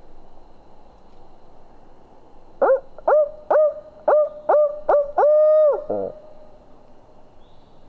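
Barred-owl locator call: six short hoots in quick succession, then one longer held hoot that falls off at the end, loud and close. It is the 'who-cooks-for-you' call a turkey hunter hoots to shock a roosted gobbler into gobbling.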